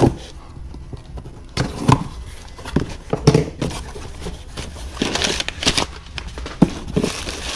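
A cardboard shipping box being opened and handled on a wooden workbench. Its flaps rustle and plastic-wrapped parts crinkle, with a few sharp knocks as the box and parts are moved.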